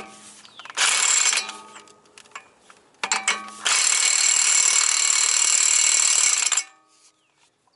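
Impact wrench with a 36 mm socket hammering a Honda Accord's front axle nut tight. There is a short burst about a second in, a couple of brief bursts around three seconds, then a long run of about three seconds that stops abruptly.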